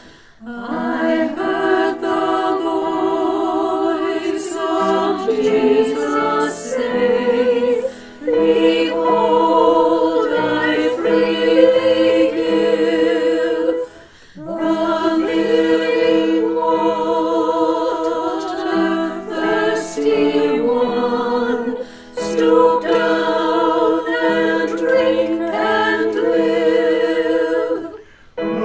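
Mixed choir of men's and women's voices singing a hymn with piano accompaniment. The sung phrases break briefly about every six to eight seconds.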